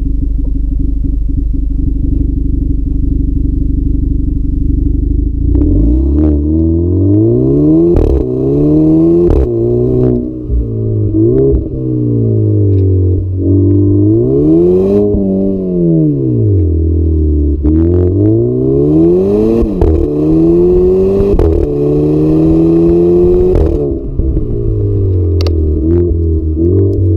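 Stock 2010 Seat Ibiza Cupra Bocanegra's 1.4 TSI four-cylinder revved repeatedly through its factory exhaust. After about five seconds of a steady low drone, the revs climb and fall again and again, with a few sharp cracks and pops as the throttle closes.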